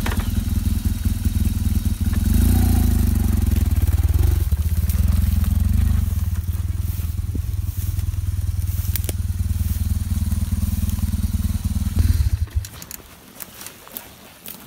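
BMW GS adventure motorcycle's boxer-twin engine running just after starting, the bike ridden slowly through a rough forest rut, with the revs rising briefly about two to four seconds in. The engine cuts off about twelve seconds in, and a few scattered crackles follow.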